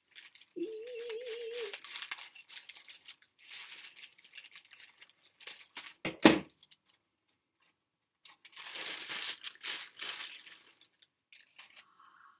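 Gift wrapping crinkling and tearing in bursts as a package is unwrapped, with one sharp knock about six seconds in that is the loudest sound. A short wavering hum comes near the start.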